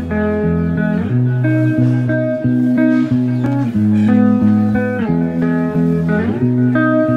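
Instrumental background music led by guitar over a bass line, with the chords changing about once a second.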